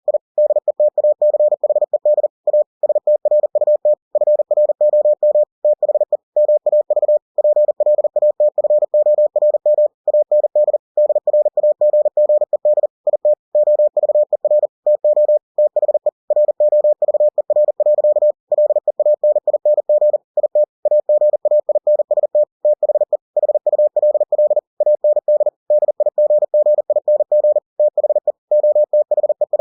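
Computer-generated Morse code (CW): a single pure beep keyed on and off in a fast, unbroken stream of dots and dashes at 40 words per minute.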